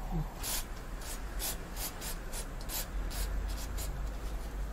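Irregular short scratchy rubbing strokes, a few a second, from work-gloved hands handling computer parts, over a steady low hum.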